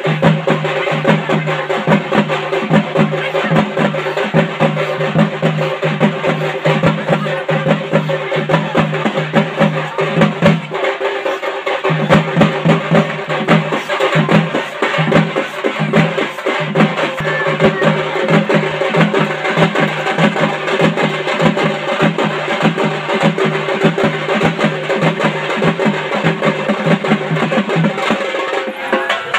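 Live festival drumming with fast, dense strokes over sustained pitched notes, played for a kokkali kattai (stilt) dance. The lowest note drops out for about a second near the middle, then returns.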